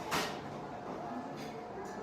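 Coffee-shop ambience: a steady murmur of background chatter and room noise, with one sharp clatter just after the start.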